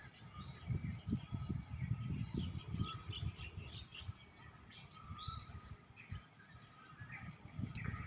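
Birds chirping and calling in short, scattered notes over a steady high insect drone, with irregular low rumbles on the microphone.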